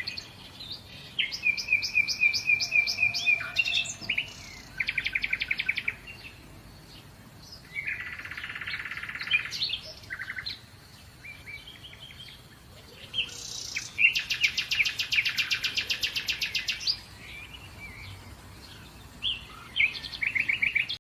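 Birds singing: a series of high chirps and rapid trilled phrases, the longest trill lasting about three seconds past the middle.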